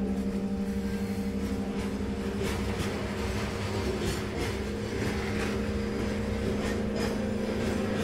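A steady low drone, pulsing at first, with the rumble and irregular clatter of a train rolling on rails coming in about two seconds in.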